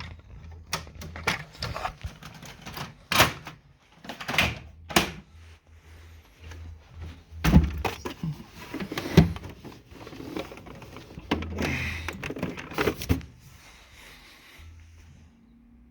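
Faulty Brother printer's mechanism running with a grinding, clattering noise: irregular knocks and clunks over an intermittent low motor hum, dying away near the end.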